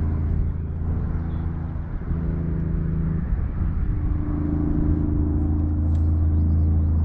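A boat's motor running steadily with a low droning hum, its tone shifting slightly about three seconds in.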